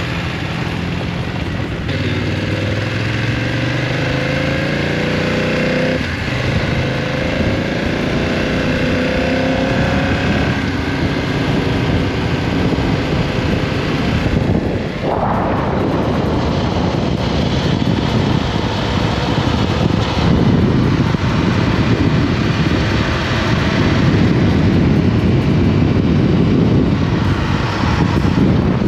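Motorcycle engine being ridden. Its pitch climbs twice in the first ten seconds, sweeps up sharply about fifteen seconds in, then carries on as a loud, rough, steady run with riding noise.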